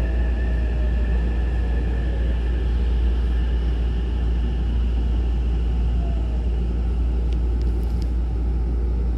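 Hankyu commuter train heard from inside the car as it rolls along the platform: a steady low running rumble, with faint whines slowly falling in pitch as the train slows. A few faint clicks near the end.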